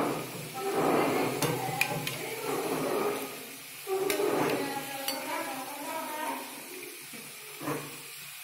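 A puri deep-frying in hot oil in an iron kadhai, sizzling, while a metal ladle presses it and clinks against the pan a few times. Voices murmur in the background.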